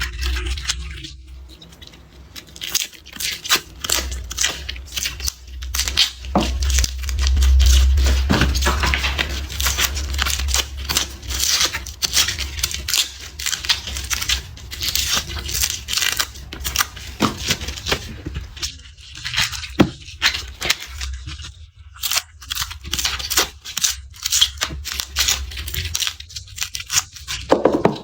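Dry, papery garlic skins crackling and tearing as cloves are peeled by hand, in close, irregular bursts with short pauses. A low rumble runs underneath for a few seconds about a quarter of the way in.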